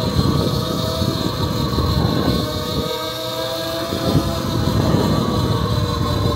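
E-Ride Pro SS electric bike under way, its motor giving a steady whine at an even pitch over heavy wind rumble on the microphone.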